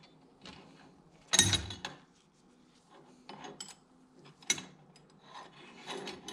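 Metal tools and a valve-train spring being handled on a BMW N52 cylinder head: scraping and rubbing with scattered clinks, the loudest a short clatter about a second and a half in, and a sharp click a few seconds later.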